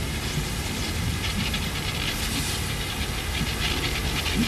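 Steady low mechanical rumble with a hiss over it. The hiss swells a little in waves, most strongly around the middle and near the end.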